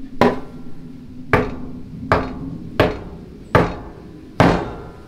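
Orange mallet striking the Jeep YJ's body at the windshield hinge where a rubber bumper is being seated: six sharp blows roughly a second apart, each with a brief ring from the metal.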